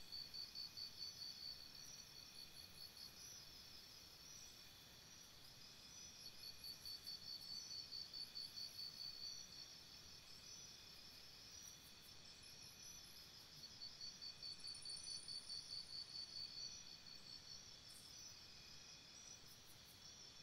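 Faint crickets chirping in fast pulsed trains, about four pulses a second, coming in bouts of a few seconds with short lulls between, over fainter, higher insect chirps.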